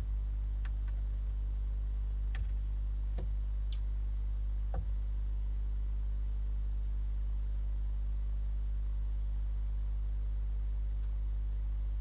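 Steady low electrical hum on a nest-box camera's audio feed, with a few faint clicks and ticks in the first five seconds.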